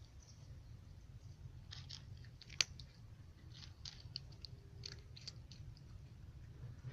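A cat crunching dry kibble, with irregular crisp crunches clustered through the middle and one sharp, louder click about two and a half seconds in.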